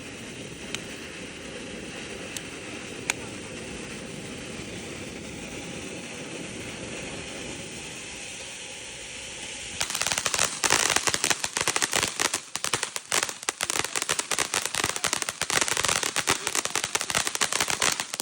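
Consumer ground firework going off: a steady hissing spray for about ten seconds, then a dense, rapid string of crackling bangs that is much louder and stops suddenly near the end.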